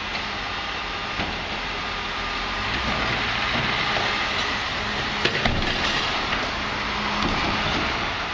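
MAN TGS 26.320 garbage truck's six-cylinder diesel running while its Faun Variopress rear lifter raises and tips a large four-wheeled wheelie bin into the hopper, with a couple of sharp knocks from the bin about five seconds in. Cars drive past close by.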